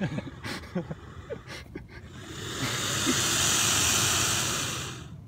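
Alligator hissing with its mouth open: one long hiss of about three seconds that swells and then fades, a defensive warning.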